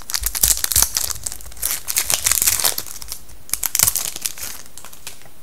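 Foil hockey card pack wrapper being crinkled and torn open by hand, in three spells of crackling over about four seconds.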